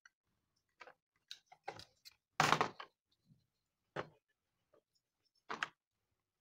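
Scattered short knocks and clicks, about seven, irregularly spaced, the loudest about two and a half seconds in: a circuit board with its aluminium heat sink being handled, with a screwdriver at the bridge rectifier's mounting screw.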